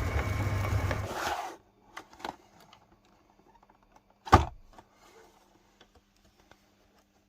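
Electric meat grinder running while it grinds marshmallows, stopping suddenly about a second and a half in. After that come a few light clicks and one sharp knock near the middle.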